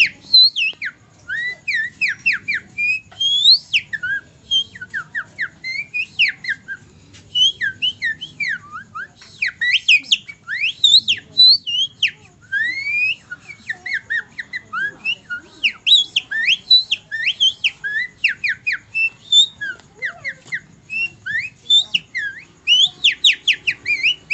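A man whistling an imitation of songbird song: a fast, unbroken string of short high chirps and quick sliding whistles.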